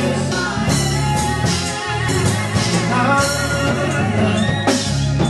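Live gospel worship music from a church band, with cymbals, a steady bass and voices singing along.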